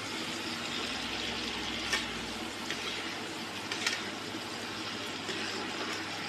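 Water-soaked spice paste sizzling and bubbling in hot oil in a kadai, a steady hiss while the masala cooks until the oil separates. A metal ladle stirring it clicks against the pan about two seconds in and again near four seconds.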